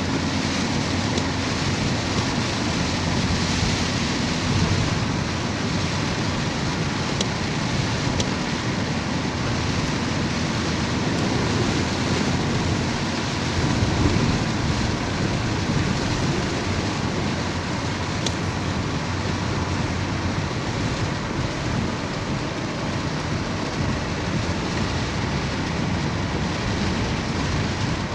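Heavy rain pouring steadily, a dense even hiss of downpour with no break.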